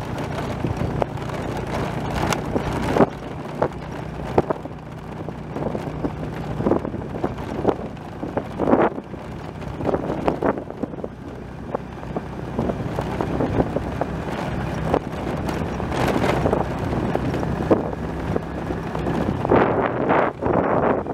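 Wind buffeting the microphone with irregular rustling and scattered short clicks, over a steady low hum.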